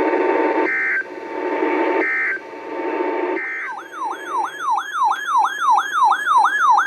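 Three short Emergency Alert System end-of-message data bursts, each a fraction of a second and about a second apart, over the hiss of radio reception. Just before halfway an electronic siren tone starts, sweeping quickly up and down about three times a second.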